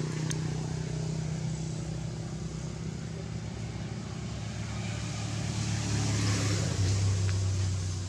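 A motor vehicle's engine hums steadily. It swells louder for a couple of seconds near the end as it passes, and its pitch drops about seven seconds in.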